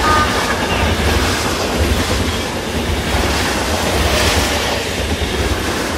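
High-speed train running at speed: a steady low rumble with rushing noise.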